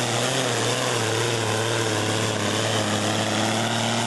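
Massey Ferguson 2640 pulling tractor's diesel engine running flat out at steady high revs while dragging the weight sled down the pulling track.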